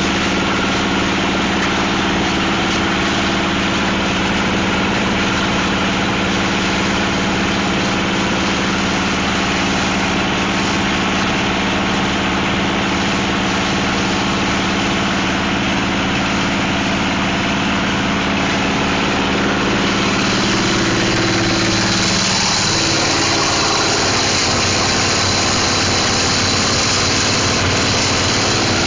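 Plastic crusher machine running with a steady hum and hiss. About twenty seconds in, the hiss grows brighter and the hum dips briefly in pitch before settling again.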